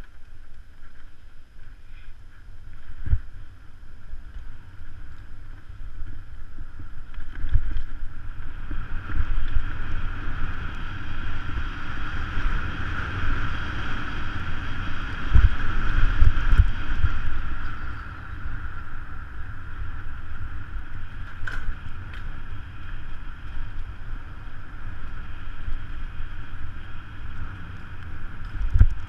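Mountain bike rolling fast along a dirt singletrack, heard from a camera mounted on the bike: wind buffeting the microphone, a low rumble with thumps and a few sharp knocks as the bike rattles over the trail. A steady high buzz rises in the middle and fades again.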